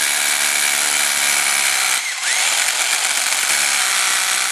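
Power drill working down through a timber batten into solid concrete. It runs steadily under load, drops off briefly about two seconds in, then picks up again.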